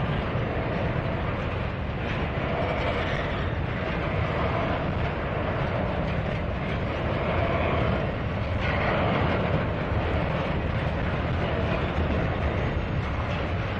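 Double-stack intermodal freight train's well cars rolling past, a steady rumble and rattle of steel wheels on the rails.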